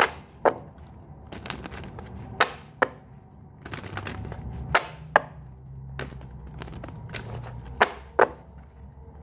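A deck of tarot cards being shuffled and handled, with four pairs of sharp snaps, the two in each pair about half a second apart, over a faint rustle.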